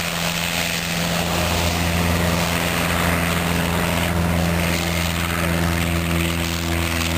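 Cessna 150's Continental O-200 four-cylinder engine and propeller droning steadily as the plane accelerates down the runway on a short takeoff roll. The sound gets a little louder in the first couple of seconds, then holds even.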